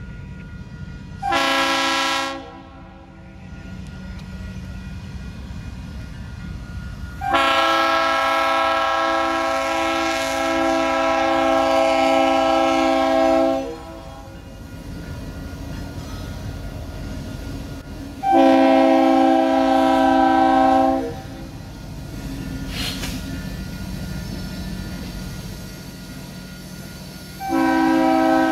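A BNSF B40-8W's Nathan RS-3L three-chime air horn sounding for a grade crossing: a short blast, a long blast of about six seconds, a shorter blast and another long blast starting near the end. The passing train rumbles low between the blasts.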